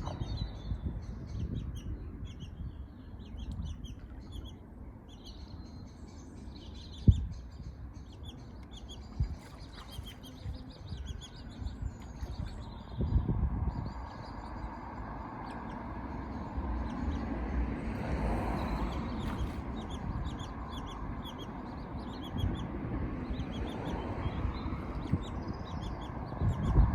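Birds chirping in short, high, repeated calls over a low rumble, with one sharp knock about seven seconds in.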